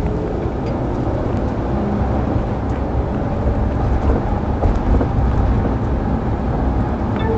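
Steady low rumble of road and engine noise inside a moving police patrol car.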